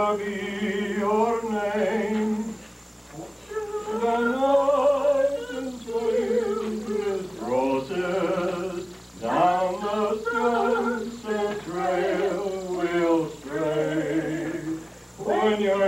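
An older man singing solo, holding long notes in phrases a few seconds long with short breaths between them.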